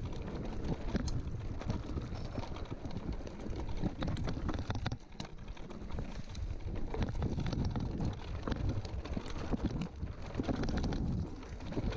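Mountain bike riding over a rough, stony singletrack: tyres rolling over loose stones, with frequent short rattles and knocks from the bike, under steady wind rumble on the microphone.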